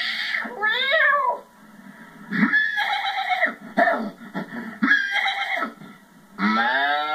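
A man imitating animal calls with his voice: a string of short, wavering meow-like calls, then a long steady moo-like call starting near the end.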